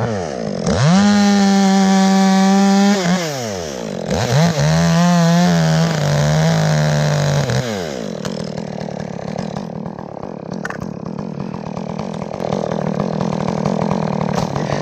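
Two-stroke chainsaw revved up to full throttle twice, each time held for a few seconds and then let back down; on the second run the pitch wavers and sags a little, as under load while cutting wood. From about eight seconds in it runs lower and steadier, as at idle.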